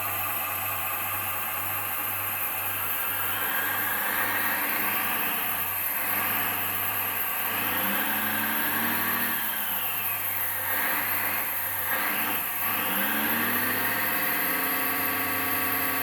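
1/14-scale RC hydraulic excavator running: a steady engine hum from its sound module, with a whine from the hydraulic pump and brushless motors that rises and falls in pitch several times, mostly in the second half, as functions are worked.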